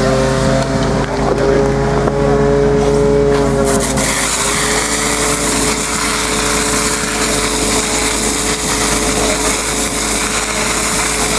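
Portable fire pump engine running steadily at high revs, a constant droning whine. About four seconds in, the hiss of high-pressure water jets from two hose nozzles joins it and fills the upper range.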